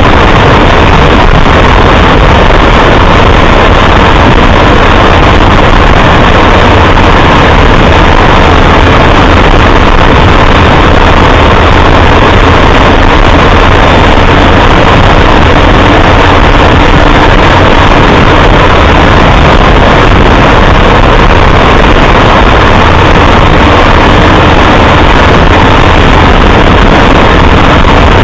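A vehicle on the move: steady, loud engine, road and wind noise with no sudden events.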